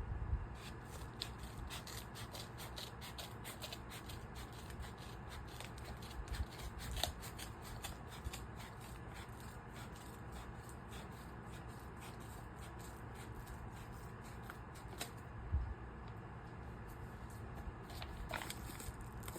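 Handling noise from plastic DVD cases and packaging: a dense run of small clicks and rustles, with a few louder knocks.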